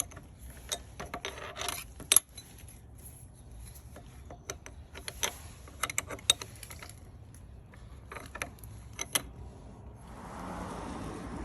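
Irregular metal clicks and clinks of a wrench working on a kids' bike pedal as it is tightened onto the crank arm, with a soft rushing noise near the end.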